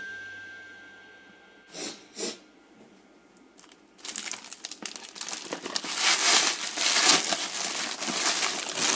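Foil wrapper of a giant Kinder Surprise egg crinkling and tearing as it is unwrapped: two short rustles, then continuous loud crinkling from about four seconds in. A held tone fades out in the first second.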